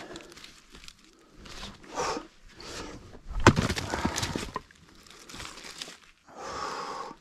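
Split firewood knocking and clattering as the pieces are handled at a chopping block. The loudest is a sharp knock about three and a half seconds in, followed by a second of rattling wood, with a shorter rustling clatter near the end.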